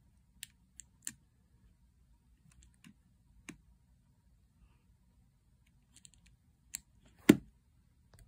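Small keys on an M5Stack Cardputer clicking as they are pressed, a few scattered presses, then a louder thump near the end as the device is set down.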